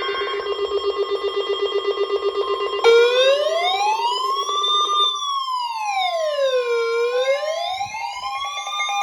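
Electronic alert tones: a steady pulsing buzz alarm, then from about three seconds in an electronic siren wailing slowly up and down, roughly one sweep every four seconds. A steady single beep tone near 1 kHz, like the NOAA Weather Radio 1050 Hz warning alarm tone, sounds under both.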